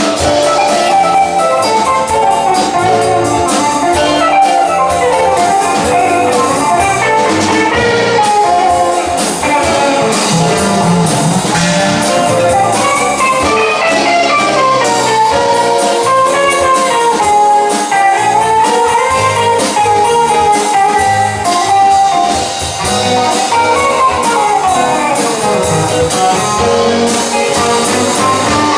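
Live blues band playing an instrumental break: guitars, bass guitar and drums, with a solo melody line winding over them.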